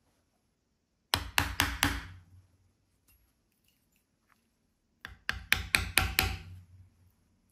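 Hammer strikes on a leathercraft bench in two quick runs: about four blows a second in, then about six more a few seconds later, each with a short ring.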